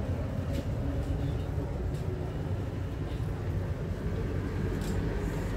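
Steady low rumble of shipboard machinery and ventilation inside a compartment of the USNS Burlington, with a few faint clicks.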